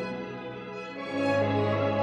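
Orchestral background music, slow strings, swelling about a second in.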